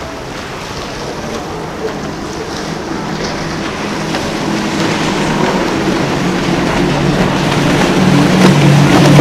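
Powerboat's outboard engines running at speed with a steady note, growing louder as the boat comes close, over the hiss of its wake and spray.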